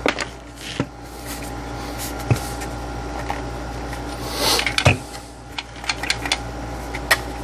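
Plastic housing of a fan-type mosquito trap being picked up and turned over by hand: scattered knocks and clicks, with a louder rushing swish about four and a half seconds in, over a steady faint hum.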